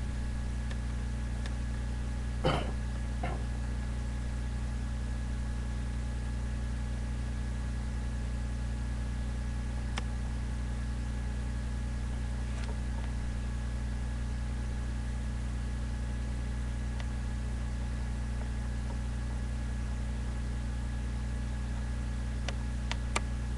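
Steady low hum with a faint high whine above it, as from room equipment. A brief sound about two and a half seconds in, and a few faint clicks near the end.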